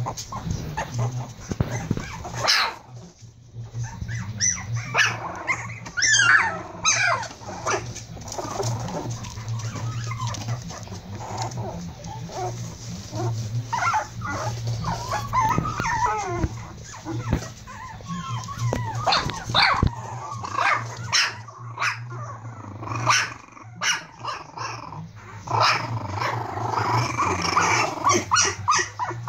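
Prague Ratter puppies at play, giving many short, high yips and squeals with small barks, over a steady low hum.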